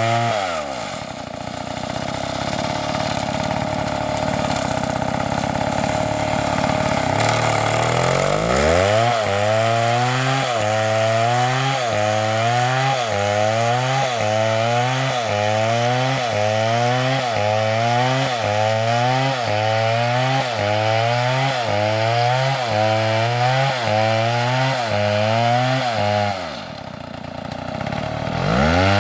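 Chainsaw engine dropping to a lower, steadier note, then revving back up about eight seconds in. Under the load of cutting wood, its pitch then dips and recovers about once a second. Near the end it falls off briefly and revs up again.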